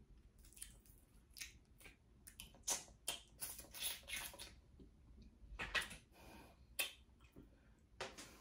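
Snow crab shells being snapped and cracked open by hand: a scatter of sharp cracks and clicks, with a quick run of them a few seconds in and single cracks near the end.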